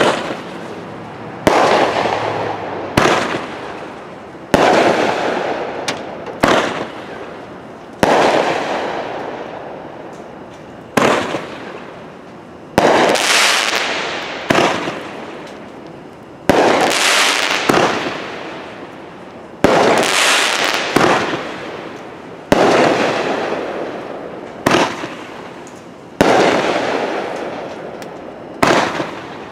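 Phantom Fireworks Big Red One, a 500-gram, 12-shot consumer firework cake, firing shot after shot. Each shot is a sharp bang, coming every one and a half to three seconds, followed by a long fading tail of noise.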